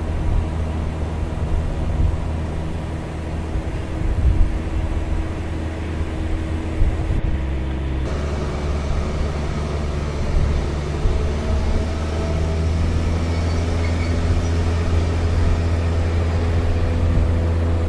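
Heavy diesel engine of large mining machinery running steadily, a deep continuous drone; its tone shifts abruptly about seven seconds in.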